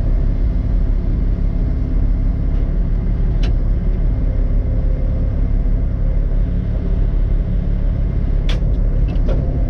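Komatsu excavator's diesel engine running steadily with a low rumble while the bucket scoops up a little dirt; two short sharp clicks or knocks, one about three seconds in and one near the end.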